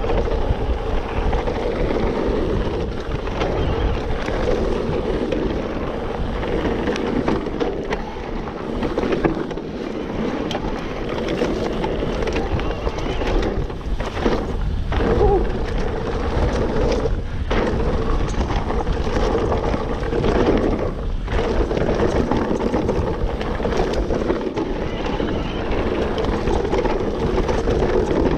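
Mountain bike ridden fast down dirt forest singletrack: steady tyre roar over the dirt with wind rushing over the microphone. The noise dips briefly a few times midway.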